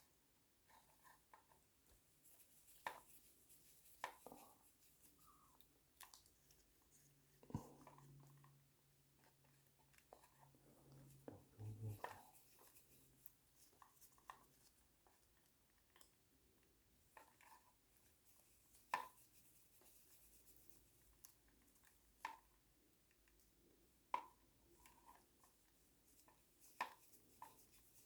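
Near silence broken by faint, scattered clicks and light taps of hand work on motorcycle ignition switch wiring and connectors.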